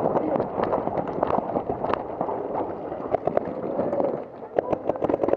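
Running footsteps on dirt with gear rattling and wind on the helmet microphone. About four seconds in the running stops and quick sharp pops of paintball guns firing begin.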